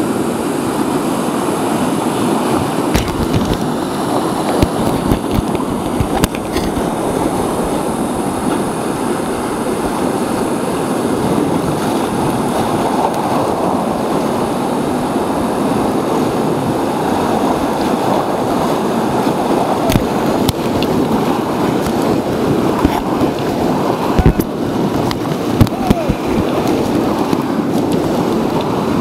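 Whitewater rapids rushing steadily past an inflatable raft, with scattered sharp knocks and splashes against the raft and several close together near the end.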